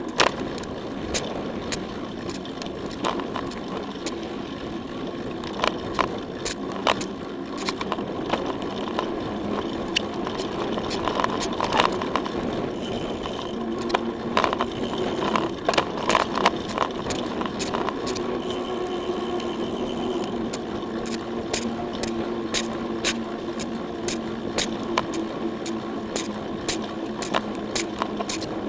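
Mountain bike ridden over a dirt and gravel trail, heard through a camera mounted on the bike: steady tyre and wind noise with frequent sharp clicks and rattles as the bike jolts over bumps. A thin whine comes and goes twice around the middle.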